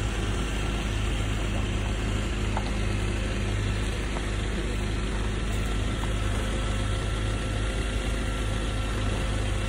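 A vehicle engine idling close by: a steady low drone with a fast rattling texture.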